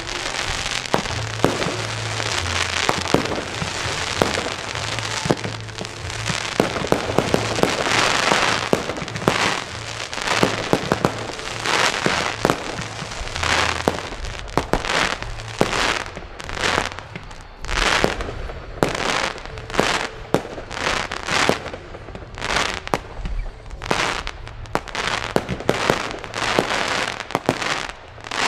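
Aerial fireworks going off: a dense, continuous rattle of crackling stars and bursts that breaks up, over the last dozen seconds, into many separate sharp bangs and crackle bursts.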